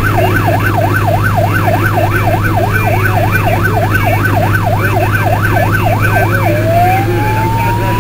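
Fire truck's electronic siren on a fast yelp, sweeping up and down about three times a second, then switching about six and a half seconds in to a slow rising wail. It is heard from inside the cab of the Star fire truck over the steady hum of its engine.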